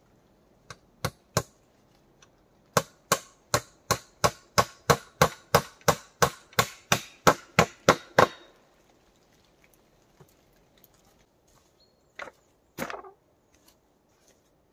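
A tool striking wood: three sharp strikes about a second in, then a steady run of quick strikes, about three a second, for some five seconds, and two more near the end.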